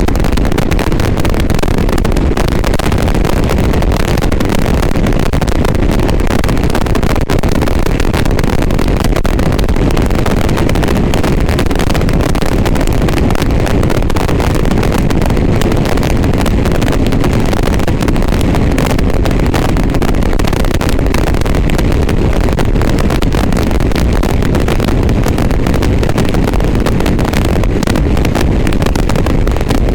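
Loud, steady wind noise on a GoPro's external microphone while riding, with no clear engine note coming through: the bad sound this camera and microphone setup records.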